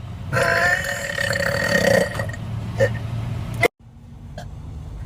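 A person belching: one long, loud, drawn-out burp of about a second and a half. A couple of short clicks follow, then the sound cuts off abruptly about three and a half seconds in, and a low hum builds up.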